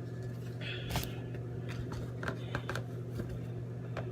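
Light rustling and a few small taps from handling a box of dry pancake mix and a measuring cup, over a steady low electrical hum.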